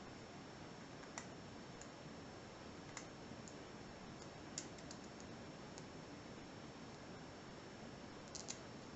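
Small, sharp clicks of a lock pick working the pins of a weathered 5-pin Yale padlock held under heavy tension, coming irregularly, with a close pair of louder clicks near the end, over a faint steady hiss.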